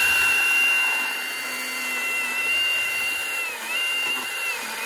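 Milwaukee M18 Fuel Hatchet 8-inch cordless pruning saw running with a steady high-pitched whine as its chain cuts through a log. The pitch dips briefly twice near the end.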